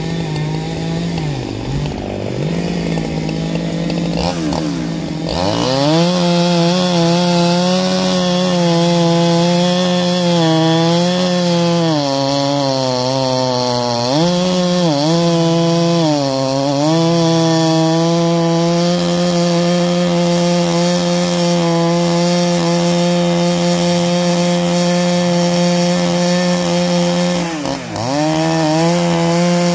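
Two-stroke petrol chainsaw running at a lower, steady speed, then throttled up about five seconds in and held at high revs while cutting into a large log. The pitch dips briefly a few times, around halfway and again near the end.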